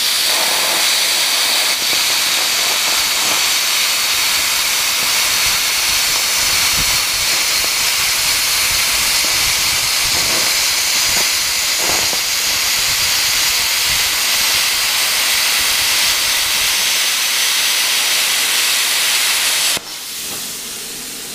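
PrimeWeld CUT60 plasma cutter with a Tecmo IPT-60 torch, running at 60 amps and cutting through quarter-inch mild steel: a loud, steady hiss of the plasma arc and air. It cuts off abruptly about a second and a half before the end, dropping to a softer hiss.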